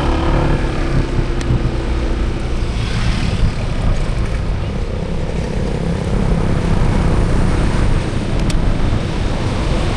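Vehicle engine and road noise with a steady low rumble, and wind on the microphone.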